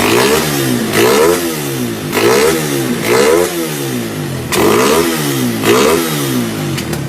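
Suzuki Raider 150 motorcycle with an aftermarket power pipe exhaust, revved in short throttle blips about once a second. Each blip climbs in pitch and then drops back.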